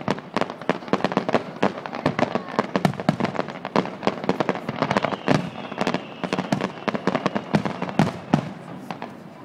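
Fireworks display: aerial shells bursting and low fountain or comet effects firing, giving a dense, irregular run of bangs and crackles, several a second.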